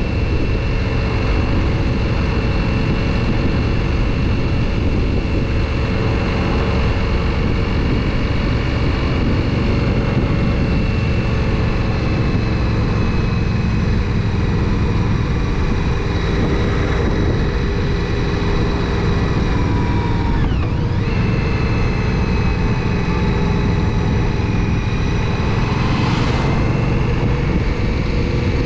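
2017 Indian Scout's V-twin engine running steadily while cruising, with wind rushing over the microphone; the engine's pitch drifts only slightly.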